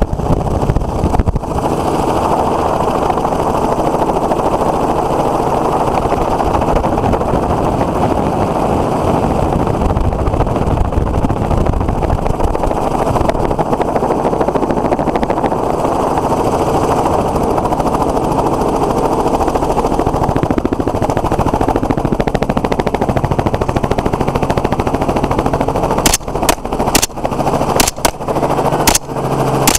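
Helicopter running steadily in flight, heard loud from the open doorway. About four seconds before the end, a rifle fires a rapid string of about eight shots in under four seconds at running hogs.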